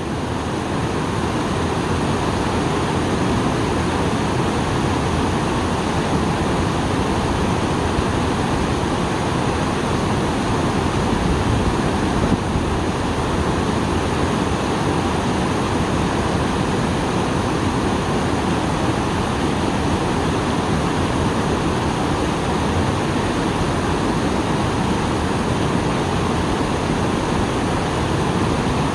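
Small waterfall running high after rain: a steady, loud rush of falling and splashing water.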